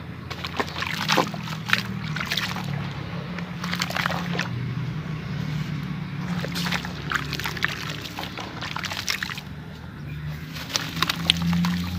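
Gritty grey blocks dipped in a bucket of muddy water and broken apart by hand: water sloshing and splashing, with many short crisp crackles and crunches as the soaked material gives way.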